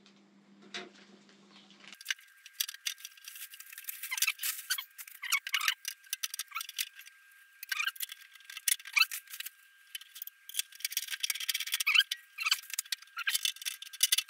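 Dense, irregular clicking and rattling of small metal parts and wiring being handled while fitting a motorcycle's rear fender and electrics. After a faint low hum, the sound turns thin and tinny about two seconds in, with a faint steady high tone beneath the clicks.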